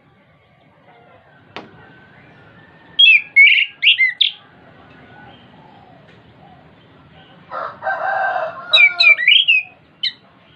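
Chestnut-capped thrush (anis kembang) singing: a quick run of loud whistled, sliding notes about three seconds in, then a harsh buzzy note at about seven and a half seconds that runs into a second quick run of whistles and one last short note.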